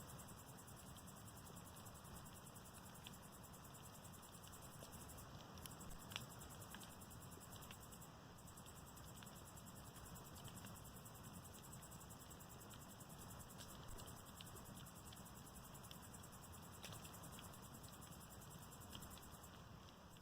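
Faint bonfire of dry, termite-eaten scrap wood burning steadily: a soft hiss with a few faint pops.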